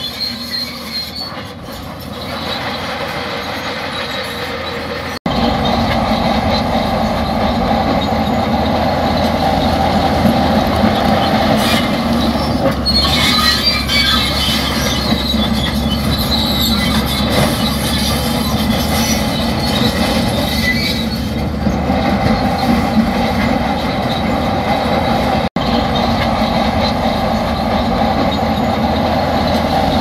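Shantui crawler bulldozer working, its engine running steadily under the squeal and clank of its steel tracks as it pushes rock. The sound breaks off abruptly and comes back louder about five seconds in, and drops out for an instant near the end.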